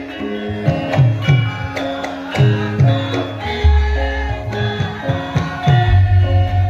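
Javanese gamelan playing: struck metallophone notes over repeated hand-drum strokes whose pitch drops, with a deep gong swelling in about halfway through and again near the end.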